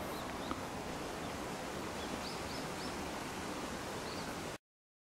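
Steady open-air outdoor noise with a few faint, high bird chirps about two to four seconds in; it cuts off abruptly shortly before the end.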